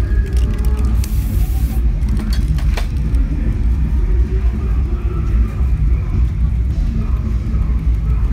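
A spray paint can hisses briefly about a second in, over a steady low rumble. A few sharp clicks follow.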